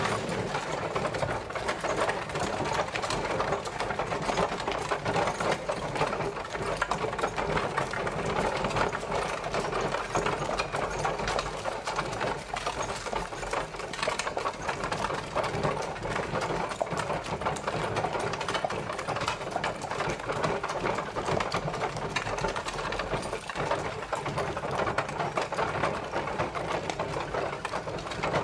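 Horse-drawn carriage travelling: a continuous, dense rattle and clatter of the carriage rolling along, steady throughout.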